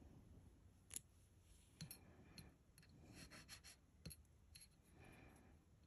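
Faint scratch test of a small gold stud earring on a gold-testing scratch stone: light scratching strokes, quickest about three seconds in, and a few small clicks of metal on stone.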